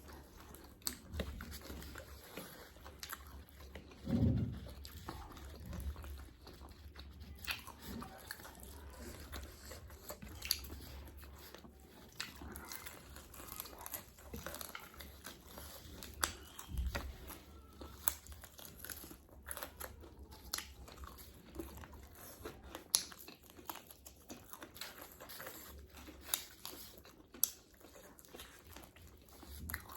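A person biting and chewing crunchy food, with irregular crunches and wet mouth clicks throughout and a louder low thump about four seconds in.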